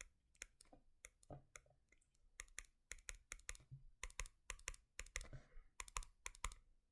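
Faint typing on a computer keyboard: irregular light key clicks, sparse at first, then several a second from about two seconds in.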